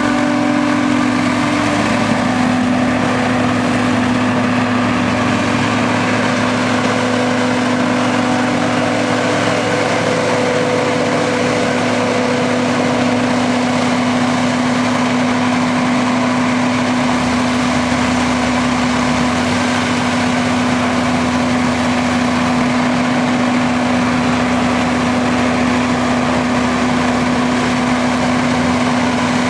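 Large diesel engine of silage-harvesting machinery running steadily, with a strong constant hum and a dense mechanical noise above it.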